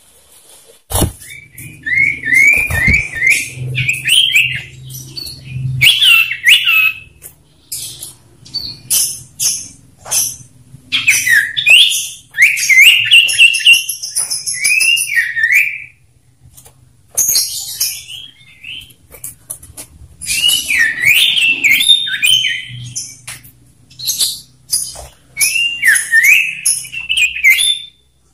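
Male common iora singing: bursts of loud whistled phrases of quick up-and-down glides, mixed with sharp high chips, broken by short pauses.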